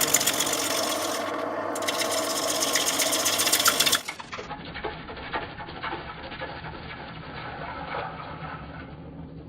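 A turning tool cutting a spinning green sycamore bowl blank on a Record CL3 wood lathe, giving a loud, dense scraping hiss. About four seconds in it stops abruptly, and a much quieter, duller sound follows.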